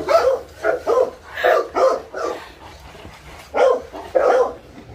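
Dogue de Bordeaux barking repeatedly in short barks: a quick run of about six, a pause of about a second, then three more.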